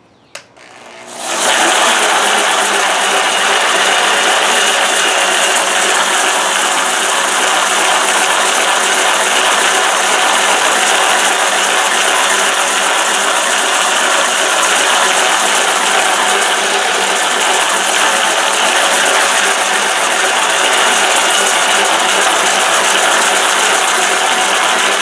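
Hardin Triad planetary concrete grinder switched on about a second in, its electric motor coming up to speed and then running steadily as its resin pads grind the concrete surface. It stops abruptly at the end.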